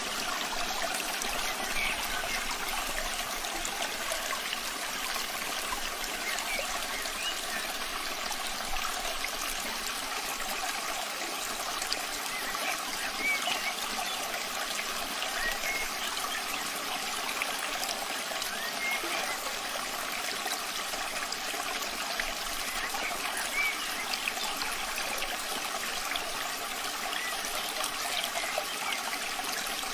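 Steady rain falling, an even unbroken wash of water noise with scattered drop sounds.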